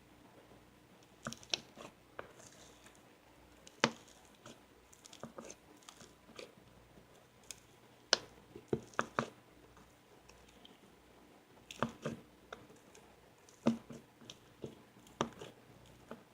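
Snow slime being squeezed and pressed by hand, giving irregular crunchy crackles and squishes in clusters a few seconds apart.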